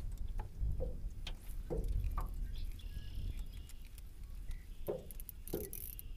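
Small waves slapping against the side of a small fishing boat, a few separate slaps and knocks, with wind rumbling on the microphone, strongest in the first half.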